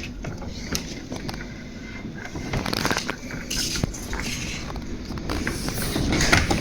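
Radio static: a hiss that rises and falls, with irregular crackles and clicks.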